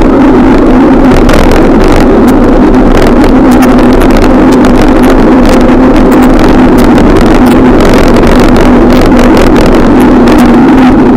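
Loud, steady wind and rolling noise on the microphone of a camera travelling on a moving bicycle, with a steady low hum and scattered faint clicks.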